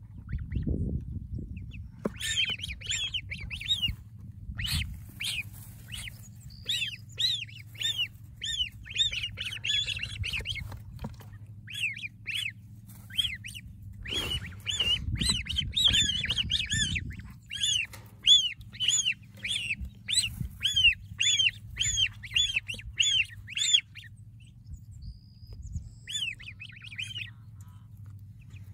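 A group of ducklings and goslings peeping: short, high-pitched calls repeated over and over, often two or three a second, easing off for a moment near the end.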